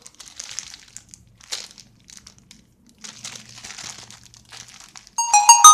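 Clear plastic bag around a squishy toy crinkling and rustling in short bursts as it is handled. About five seconds in, a sudden loud ringing sound of several held tones cuts in, the loudest thing here.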